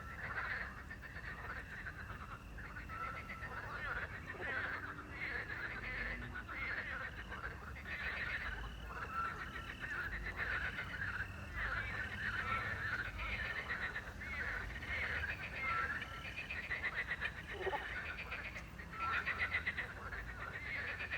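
A chorus of frogs croaking in rapid pulsing trills at night. A short owl whistle repeats about every two to three seconds, and crickets chirp steadily underneath.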